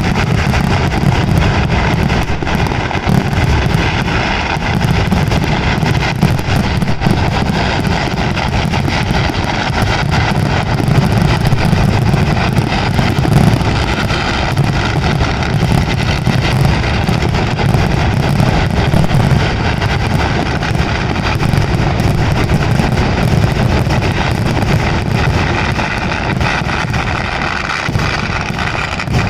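Kerala temple-festival fireworks (vedikettu) going off in a dense barrage, the bangs following so fast that they run together into one loud, unbroken rumble.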